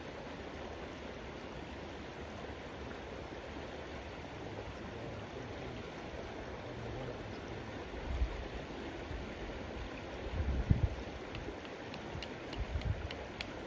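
Steady rush of a flowing river. From about eight seconds in, irregular low rumbles of wind buffet the microphone. A few faint ticks come near the end.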